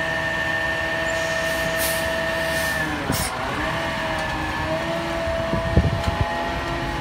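Garbage truck engine running with a steady whine, its pitch dipping briefly and recovering about three seconds in, with short air hisses before the dip and a few heavy knocks near the end.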